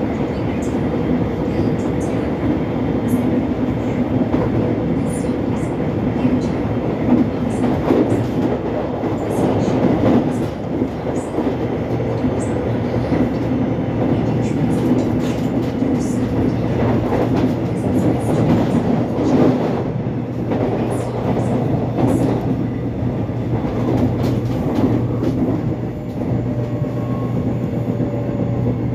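Korean subway train running: a steady rumble of wheels on the track with scattered clicks. A low steady hum joins about twelve seconds in.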